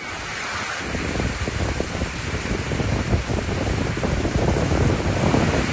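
Strong storm wind and heavy rain, the gusts buffeting the microphone with an uneven low rumble that builds about a second in.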